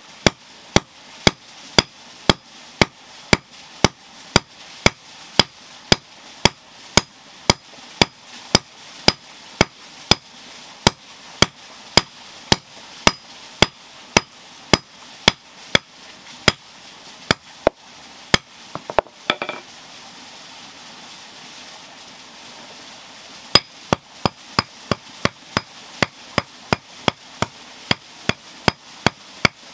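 Hand hammer forging iron, striking in a steady rhythm of about two and a half ringing blows a second. The blows stop for about four seconds just past the middle, with one short scrape-like noise, then start again.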